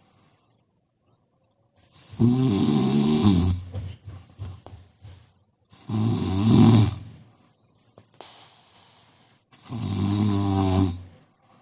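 A sleeping person snoring: three loud snores about four seconds apart, each lasting a second or so, with softer breathing out between them.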